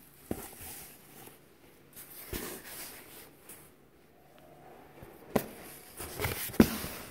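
Clothes being handled and rummaged through: soft fabric rustling with four sharp knocks of hands or the phone against the garments, the loudest near the end.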